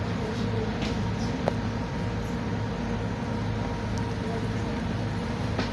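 Motor boat's engine running steadily under way, a low even drone with a faint steady whine above it, and a single sharp click about a second and a half in.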